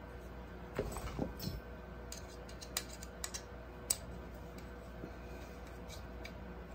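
Scattered light metallic clicks and taps of a hex key and screw being worked into a drilling jig on a metal 3D-printer bed plate. The loudest, sharpest click comes about four seconds in, over a faint steady hum.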